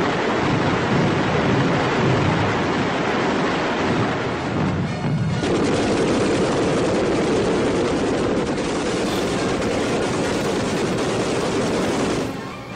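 A rocket and artillery salvo firing: a dense, continuous rumble of many shots, with a short break about five seconds in, cutting off near the end.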